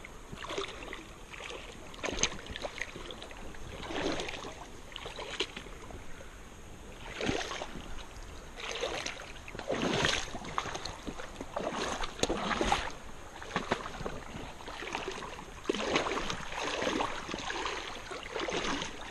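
Irregular sloshing and splashing of creek water as someone wades through it.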